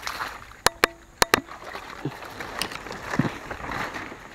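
Four sharp clicks in two quick pairs about a second in, among rustling, as a mesh fish trap is handled on grass.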